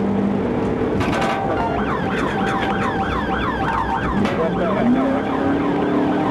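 Police car siren in fast yelp mode, about four rapid up-and-down sweeps a second, starting about a second and a half in and lasting a few seconds, over the pursuing patrol car's engine and road noise.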